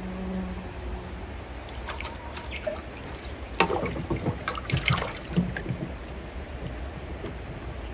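Water trickling and splashing in a garden fish pond, with a run of sharp splashes and knocks in the middle over a steady low rush of flowing water. A steady hum stops in the first second.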